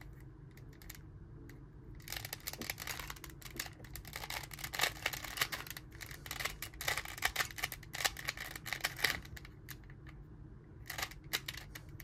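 Old 2005 Rubik's brand 3x3 cube being turned by hand at speed: quick runs of plastic clicking and clacking as the layers snap round, thinning out for a second or so shortly after the start and again near the end. The worn cube turns stiffly and is very loud.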